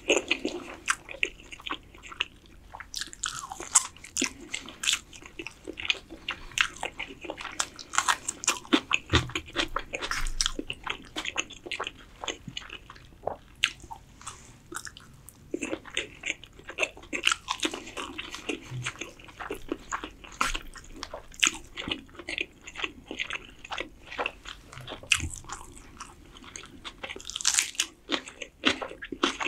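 Close-miked mouth sounds of a person eating spoonfuls of spiced yellow rice: chewing, wet smacks and clicks. Near the end, a crisp crunch as he bites into a cucumber slice.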